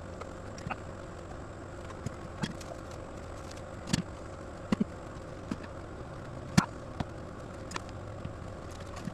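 Pieces of firewood being stacked, knocking against each other in sharp, irregular clacks about once a second, with one louder knock about two-thirds of the way through, over a steady low hum.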